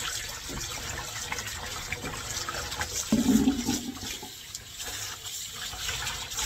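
Tap water running and splashing into a stainless steel dish basin as a dishcloth is rubbed and squeezed under the stream, a steady rush of water with small splashes.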